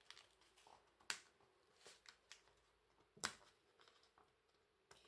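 Fingers handling small paper cut-outs on a card: a few faint paper taps and clicks, the clearest about a second in and again about three seconds in, otherwise near silence.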